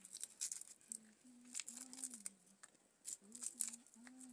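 Dried fish crackling and snapping as it is broken and picked apart by hand: an irregular run of small dry crackles, the loudest about half a second in and again near three and a half seconds.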